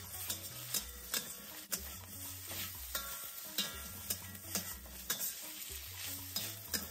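Marinated sliced beef sizzling in hot oil in a stainless steel wok on high heat, with a spatula scraping and knocking against the wok about twice a second as the meat is stirred.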